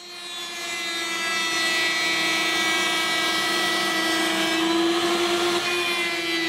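A table-mounted router spins up over the first second or so into a steady high whine and runs on, its bit cutting oak around a circular template and throwing out shavings.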